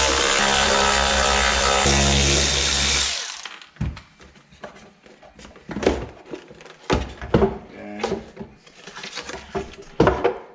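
Background music for about the first three seconds, then it cuts off. After that come irregular clicks and knocks of a hand ratchet and parts being handled as the air filter housing is undone.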